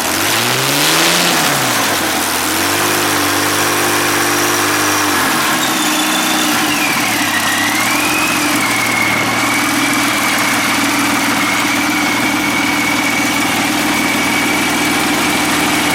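Ranger V-12 aircraft engine running on a test stand: it revs up and back down right at the start, holds a higher speed for a few seconds, then drops back and settles to a steady idle from about six seconds in. A high whine falls with the engine speed and then holds steady.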